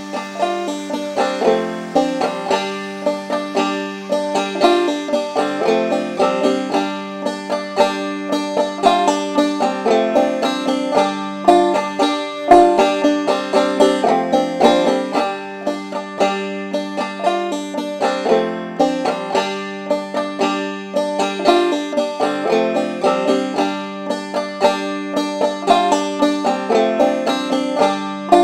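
Background acoustic music: a fast-picked string-instrument tune with many quick plucked notes.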